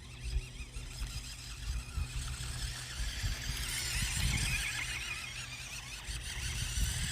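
Remote-controlled toy truck's small electric motor whining as it drives, rising and falling, loudest about four to five seconds in, over a low rumble.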